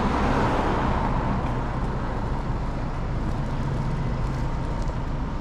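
Street traffic: a steady low rumble of engines and tyres, with one vehicle passing close in the first second or so.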